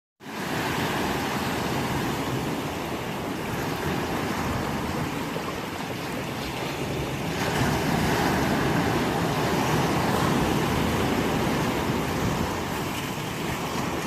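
Ocean waves breaking and washing in over a line of shoreline rocks at high tide: a steady rush of surf and foaming water that swells louder about halfway through.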